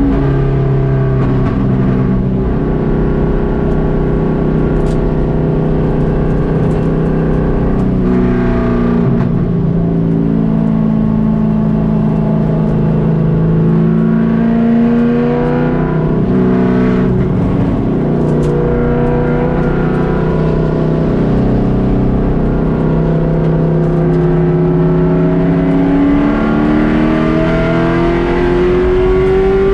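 Race car engine at full throttle, heard from inside the caged cabin: its pitch climbs as it revs through each gear and drops at every shift, over steady road and wind noise. There are several gear changes, and a long climb near the end is cut off by a sudden drop.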